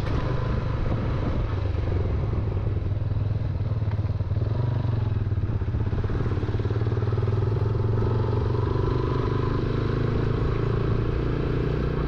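Motorcycle engine running steadily while the bike is ridden at an even pace, with tyre and road noise.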